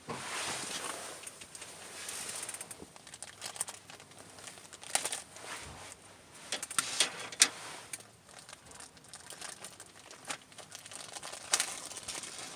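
Rustling and crinkling handling noise, with a few sharp clicks and knocks.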